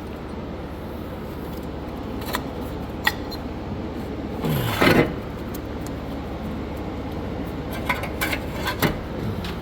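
Brake pads being fitted into a caliper bracket: scattered metal clicks and one louder scrape about halfway through, over a steady low shop hum.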